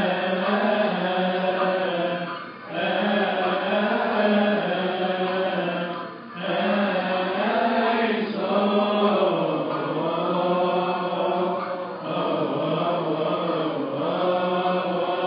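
A congregation and deacons chant a Coptic liturgical hymn together as one melody line, in long held phrases with short pauses for breath between them.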